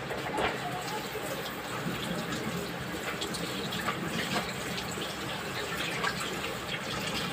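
Water sounds: a steady wash of liquid with many small crackles and ticks scattered through it.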